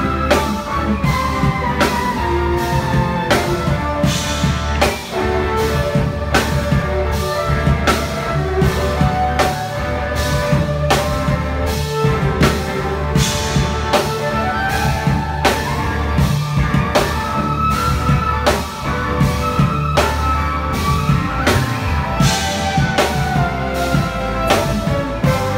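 Live jazz band playing, with a drum kit keeping a steady beat of cymbal and drum strokes over a bass line, and a melody line that falls in pitch several times.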